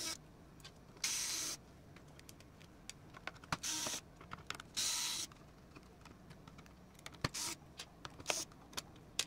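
Hands working on a laptop's underside to remove its 2.5-inch drive: scattered small clicks and taps of plastic parts, with four or five short hissing bursts of about half a second each.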